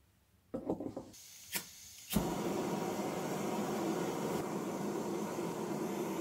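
Backpacking canister gas stove being lit: a knock as the canister is set down, a faint hiss of gas from the opened valve, then two sharp igniter clicks. The burner catches on the second click and settles into a steady rushing burn.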